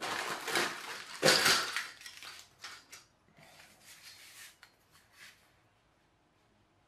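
A steel ruler handled on paper and a tabletop: scraping and clattering, loudest about a second in, then lighter rustles and taps that die away after about five seconds.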